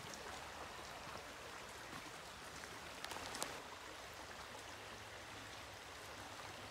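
Shallow rocky stream running over stones, a steady soft babble, with two or three faint clicks about three seconds in.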